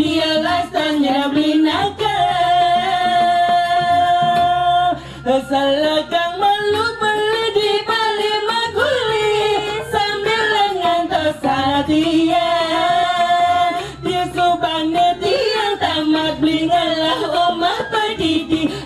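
A performer singing solo through a handheld microphone: a slow, ornamented melody with long held notes that slide between pitches.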